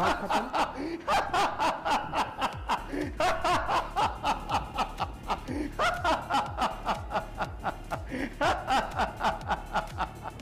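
A man laughing heartily in about five long bouts of rapid 'ha-ha' pulses, about five a second, with short breaths between the bouts.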